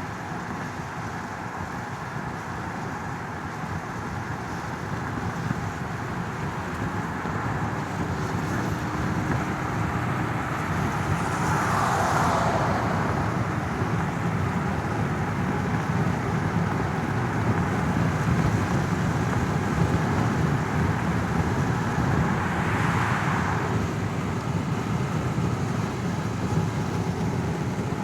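Car interior ambience: the steady rumble of road and engine noise heard from inside a moving car, growing gradually louder over the first ten seconds or so. Two brief louder rushes of noise come through, about halfway and again near the end.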